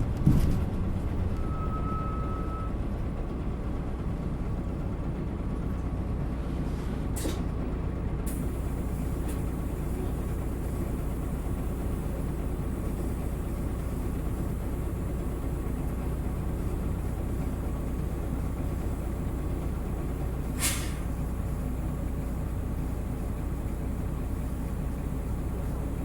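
Isuzu Erga Mio bus's diesel engine running steadily without revving. A short beep sounds about two seconds in, and two brief sharp air hisses from the bus's air system come at about seven and twenty-one seconds.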